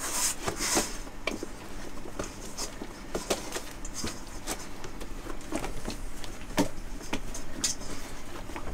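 Sourdough dough being kneaded by hand in a stainless steel bowl: irregular soft squelches, slaps and light knocks, a little louder just after the start.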